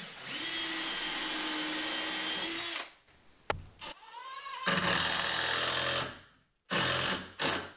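Power drill with a countersink bit boring into the wooden door jamb. It runs steadily for about two and a half seconds, then spins up briefly, then makes a second run of about a second and a half. A few sharp knocks follow near the end.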